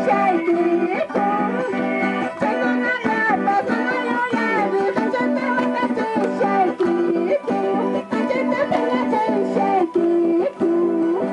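Andean folk music: small many-stringed instruments strummed steadily, with a woman singing the melody over them.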